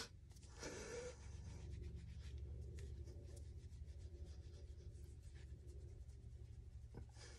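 Faint scratchy strokes of a powder makeup brush swept over the skin of the neck and jaw, over a low steady hum.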